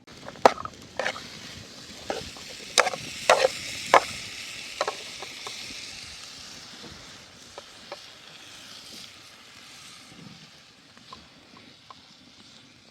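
Food sizzling in hot fat in a pan, with several sharp clinks of a utensil against the pan in the first few seconds. The sizzle starts suddenly, swells, then slowly dies down.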